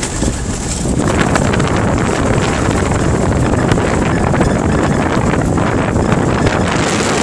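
Off-road vehicle climbing a steep bush track, engine and tyres under load, with heavy wind buffeting the microphone; the noise thickens about a second in.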